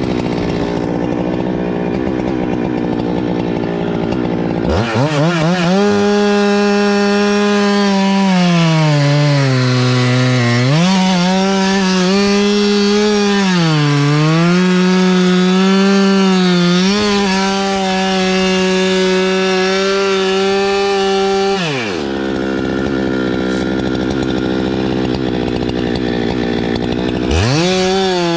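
Two-stroke chainsaw idling, then revved to full throttle about five seconds in and cutting wood, its engine note dipping several times as the chain bogs under load. It drops back to idle after about twenty seconds and revs up again near the end.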